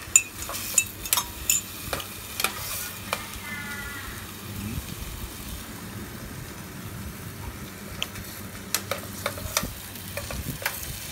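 A metal spoon clinking repeatedly against a ceramic mug as a drink is stirred, over the steady sizzle of ham frying in a pan. A few more sharp metal-on-china clinks come near the end.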